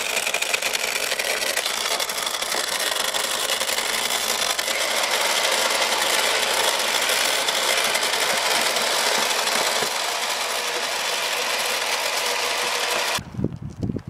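A small battery motor in a toy power tool on a children's workbench whirs steadily with a hissy buzz. It cuts off suddenly about 13 s in, and gusts of wind rumble on the microphone.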